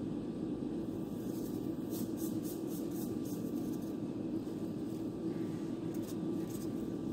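A steady low hum of background noise, with faint, brief rustles of gloved hands handling the breaded rolls a couple of seconds in and again near the end.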